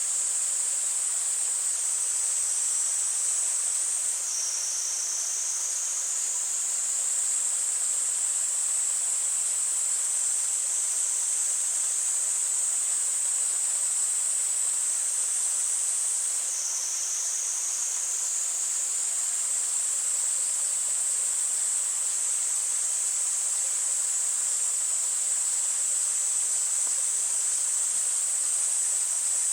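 Cicadas singing in a continuous high-pitched chorus that dips briefly lower in pitch about four seconds in and again about sixteen seconds in, over the steady rush of a mountain stream.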